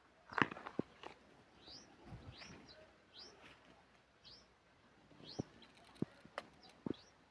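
Small birds chirping, a string of short, high, upward-sweeping notes repeated every half second or so, with a few sharp clicks in between, the loudest about half a second in.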